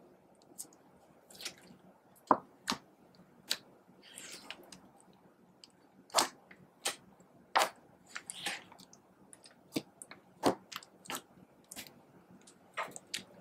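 Purple glitter slime being pressed and folded by hand on a tabletop, giving wet squishes and irregular sharp pops and clicks. The loudest pops come about two seconds in, twice around six to eight seconds, and once just past ten seconds.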